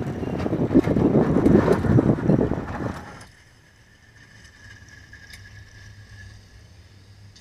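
Pickup truck with a Western MVP3 V-plow pushing snow: a loud, rough rush of engine and snow scraping along the blade with scattered crackles. About three seconds in it cuts off suddenly to a much quieter steady low hum with a faint high whine.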